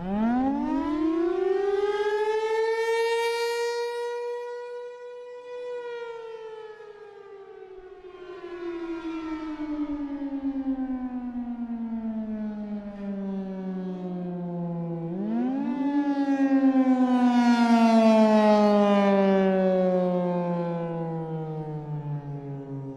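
Federal Signal Thunderbolt 1000 outdoor warning siren starting up: its single tone climbs steeply to a high, steady pitch within about three seconds, holds briefly, then winds slowly down. About fifteen seconds in it is powered up again, the pitch jumping up before sliding down once more, while the loudness swells and fades.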